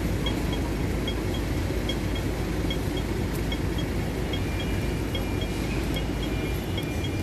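Pedestrian crossing audible signal beeping in a steady slow rhythm of short high double pips, about one pair every 0.8 seconds, over a continuous rumble of road traffic.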